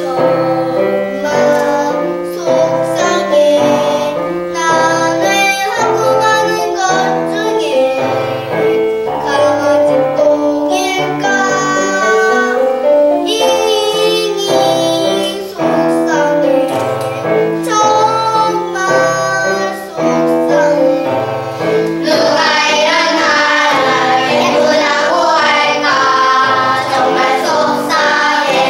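Children singing a song with piano accompaniment. About 22 seconds in, the sound turns fuller and brighter.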